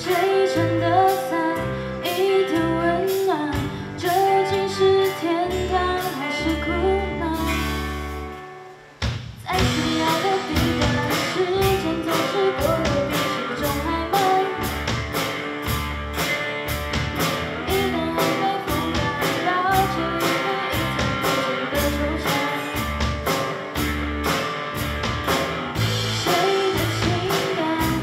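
Live band music: a woman sings over electric bass and guitar with drums. About eight seconds in the sound briefly drops away, then the full band comes back in with steady drum and cymbal beats.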